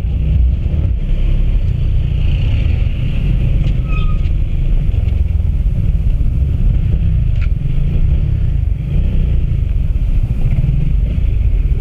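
Honda RS150 single-cylinder underbone motorcycle being ridden at a steady pace, heard mostly as a heavy, steady low rumble of wind and road noise on the rider's microphone.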